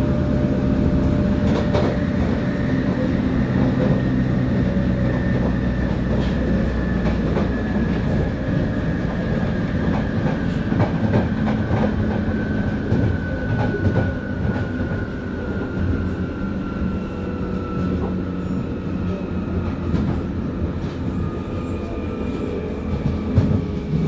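Jubilee line 1996 Tube stock heard from inside the carriage, running at speed and slowing: a steady rumble of wheels on rail with frequent rail-joint clicks, and a traction-motor whine that falls slowly in pitch as the train slows from about 57 to 34 mph.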